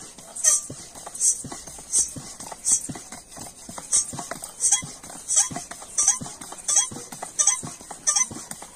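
Air pump worked in steady strokes, about one and a half a second, each stroke a short squeaky hiss, forcing air through a hose to pressurise a refilled aerosol spray can.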